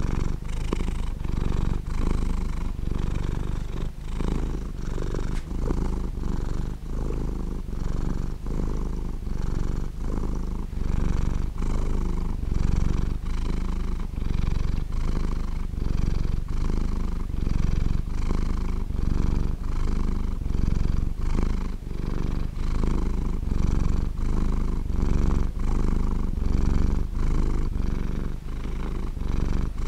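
Domestic cat purring: a steady low purr that pulses evenly with each breath in and out.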